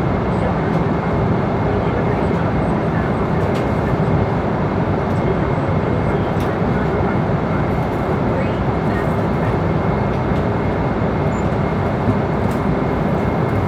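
Airliner cabin noise in flight: a steady, even rush of airflow and engine sound, heaviest in the low range, with a faint steady high tone and a few faint ticks.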